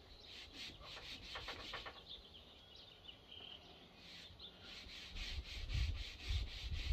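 Cloth rubbing finish into a red elm wooden axe handle with short, repeated strokes, the wood soaking it up.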